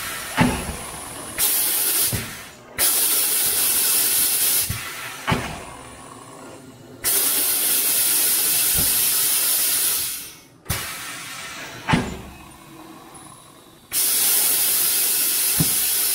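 A tire changing machine's pneumatic bead breaker working a tire's bead loose: about five bursts of compressed-air hiss, each one to four seconds long, starting and stopping abruptly, with a few sharp knocks between them.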